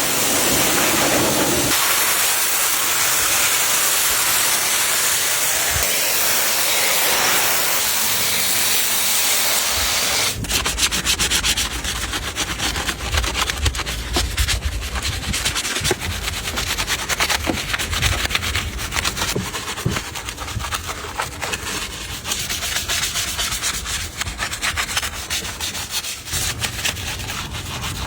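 A steady hiss of spray for about ten seconds, then rapid scrubbing against a surface, many short strokes in quick succession.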